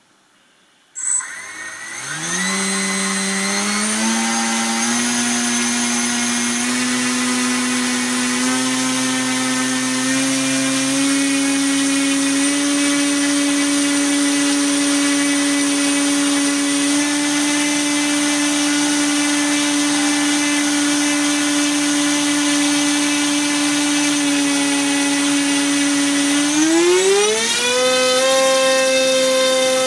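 Le Todar 2204 2300Kv brushless motor spinning a 6x4.5 HQ propeller on a thrust stand. It starts about a second in, and its whine climbs in small steps to a steady pitch. Near the end it rises sharply to a much higher pitch as the throttle is pushed up.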